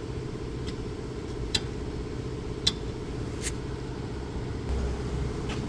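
A few sharp, light metallic clicks of small parts being handled while the old washer comes off the brake-line bolt, over a steady low machine hum that shifts slightly near the end.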